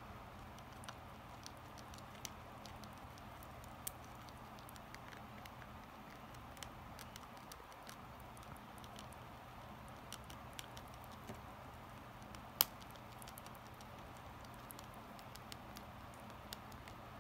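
Guinea pig chewing dry forage mix of flakes and puffed maize: scattered small, irregular crunches and clicks, with one sharper crunch about twelve and a half seconds in. A steady low room hum lies under it.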